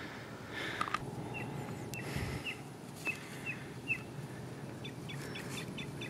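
Songbird calling: a series of short, high, downslurred chirps about every half second, then a quicker run of short high notes near the end. A steady low rumble of outdoor background noise runs underneath, with a couple of sharp clicks about a second in.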